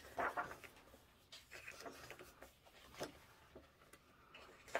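Faint rustling of paper as the pages of a softcover coloring book are turned by hand, with a few soft ticks.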